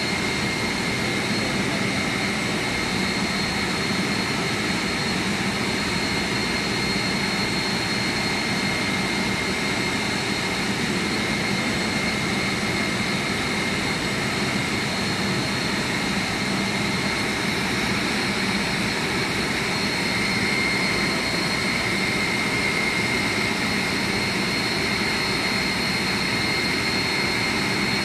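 Steady drone of running industrial machinery: a broad, even noise with a constant high whine, unchanging throughout.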